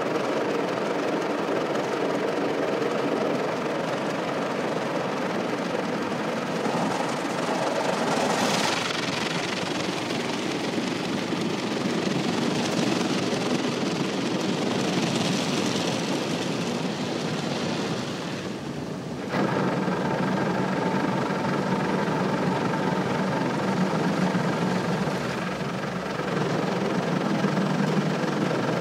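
Automatic car wash heard from inside the car: water jets spraying and drumming on the glass and body, and spinning brushes scrubbing across the windscreen, over the hum of the wash machinery. About two-thirds of the way through the noise dips briefly, then comes back with a steadier low hum underneath.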